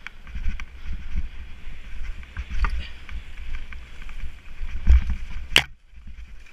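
Nukeproof Mega TR 2013 mountain bike ridden fast down a dirt singletrack, with uneven wind rumble on the headcam microphone and the bike rattling and knocking over the trail. A single sharp, loud clack comes about five and a half seconds in, followed by a brief dip in level.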